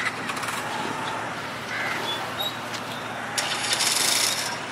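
Busy ferry-jetty ambience: a waiting crowd's murmur over the running engines of scooters and motorcycles. A louder rushing noise lasts about a second near the end.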